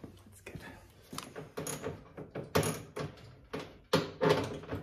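Irregular clicks, clinks and knocks of hand tools and metal hardware being handled, a few of them sharper knocks.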